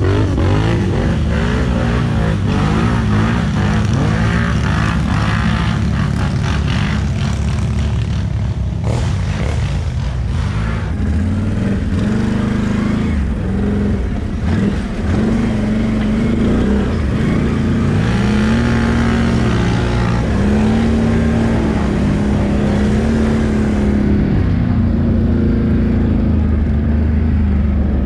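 ATV engine revving up and down over and over, its pitch rising and falling every second or two.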